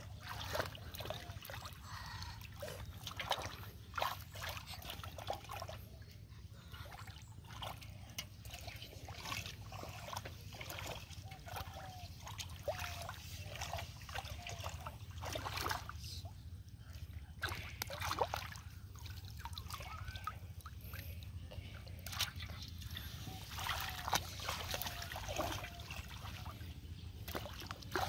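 Hands splashing and sloshing in shallow muddy water while groping for fish, with irregular splashes and trickles throughout.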